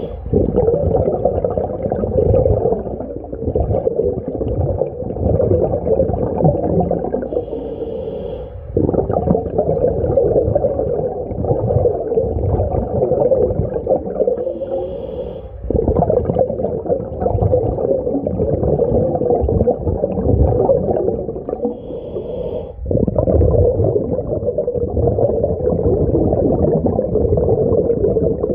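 Breathing through a portable mini scuba tank's regulator, heard underwater. A short hissing inhale comes about every seven seconds, and each is followed by a long, rumbling stream of exhaled bubbles.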